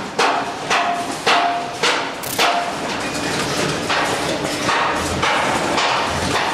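Packaging machinery clacking in a steady rhythm, about two sharp strikes a second, each with a brief ringing tone. After about three seconds the strikes blur into a denser, continuous machine clatter.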